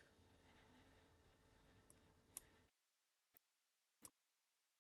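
Near silence broken by four faint, short clicks of a computer mouse button, spaced irregularly over the second half.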